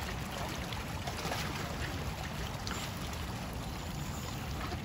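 Steady wind rumbling on the microphone, with water washing against the rocks of the shoreline.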